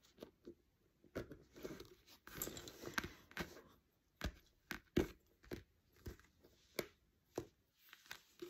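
Lace bobbins clicking against one another as pairs are crossed and twisted in cloth stitch: irregular sharp clicks, with a patch of softer rustling a couple of seconds in.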